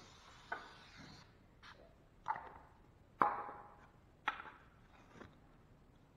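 Hands and tools being handled while fiberglass mesh tape is unrolled and laid over a drywall patch. A short hiss at the very start, then a handful of sharp knocks and clicks, a few with a brief ring; the loudest comes a little past three seconds in.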